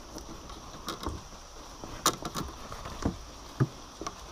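Several light knocks and clicks of handling gear in a small boat, the sharpest about two seconds in, while a caught giant river prawn is held up on the line. A steady faint hiss runs underneath.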